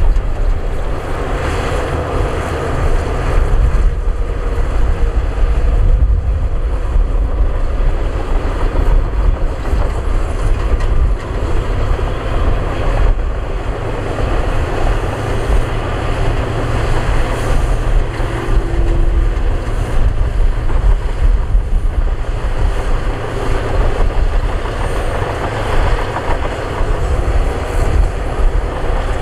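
Heavy diesel construction machinery, bulldozers and dump trucks, running and working, a steady low engine rumble.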